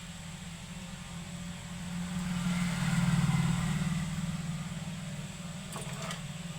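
A motor vehicle passing by, its engine noise swelling up and fading away over a few seconds over a steady low electrical hum; a few small clicks near the end.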